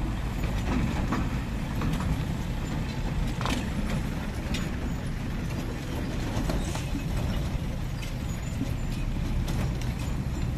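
Slow road traffic crossing a railway level crossing: heavy trucks, a pickup and motorcycles give a steady low engine rumble, with a few short sharp knocks.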